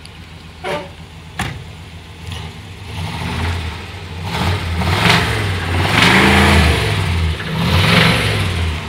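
1967 Buick Wildcat's 430 cubic-inch V8 idling, then revved hard three times in the second half before dropping back to idle. Early on, two sharp knocks come as the driver's door is shut. The owner hears the lower end rapping a little on this engine.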